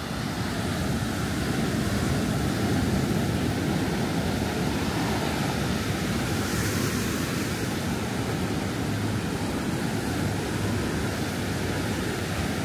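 Loud ocean surf breaking on a sand beach: a steady, even rushing wash of waves.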